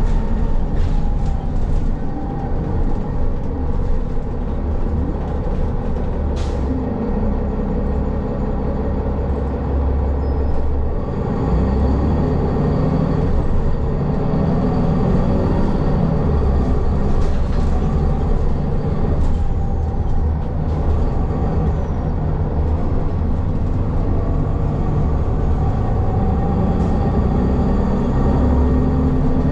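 City transit bus running, heard from inside the passenger cabin: a steady low engine and road rumble. The engine note rises and falls in pitch a few times as the bus changes speed, with occasional sharp clicks over it.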